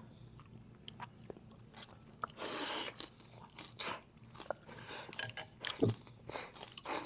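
Close-up sounds of someone eating fish noodle soup: chewing with scattered small clicks, and a couple of short hissing sounds near the middle.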